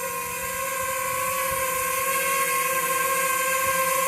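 DJI FPV drone's propellers and motors whining steadily in a hover, a high pitched drone hum with a hiss over it, growing slightly louder over the first second or so.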